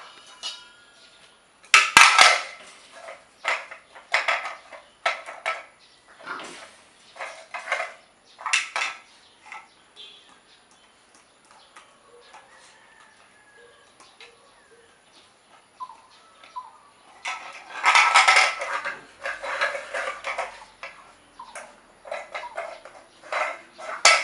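Two three-month-old puppies play-fighting: irregular bursts of growls and yips mixed with clattering and scuffling, loudest about two seconds in and again from about eighteen seconds in, with a quieter stretch in the middle.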